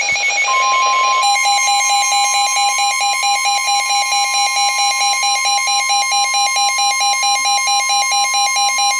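NOAA Weather Radio's 1050 Hz warning alarm tone, a single steady high-pitched tone, with a rapidly pulsing electronic alert beep about four times a second layered over it from about a second in. A brief burst of hissy noise comes at the very start. Together they signal an incoming weather warning just before the voice message.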